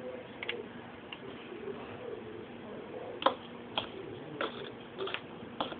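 Light taps and clicks of small objects being handled on a countertop: a few faint ones early, then five sharper taps spaced about half a second to a second apart in the second half.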